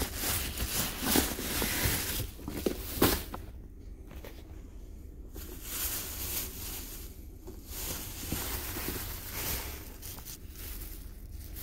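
Thin plastic bag rustling and crinkling as a latex mask is handled inside it, in stretches with short pauses and a couple of sharper knocks in the first few seconds.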